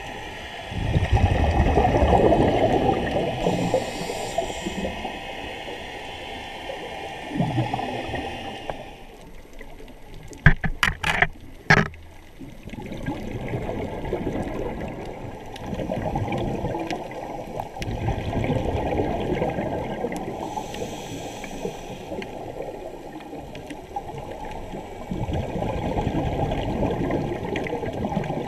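Scuba regulator breathing and exhaled bubbles, bubbling in surges every few seconds and heard muffled through an underwater camera housing. A short cluster of sharp clicks or knocks comes about ten seconds in.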